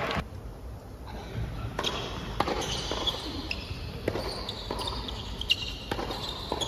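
Tennis ball bouncing on the hard court and struck by rackets in a doubles point, a series of sharp, irregular hits, the loudest about five and a half seconds in, in a large indoor arena.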